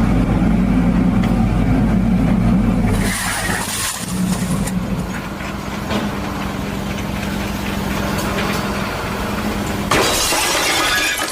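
An engine running with a steady low hum, broken by a loud crash about three seconds in and another about ten seconds in.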